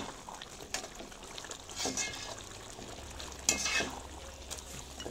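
A metal slotted ladle stirring thick chicken curry in a metal pot, with scrapes and clinks against the pot about every second or so, the loudest a little past halfway, over a steady low hiss.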